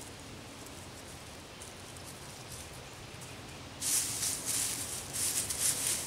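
Hands scraping and pushing dry wood-chip mulch across the ground, a scratchy rustling in uneven strokes. It is faint at first and turns louder about four seconds in.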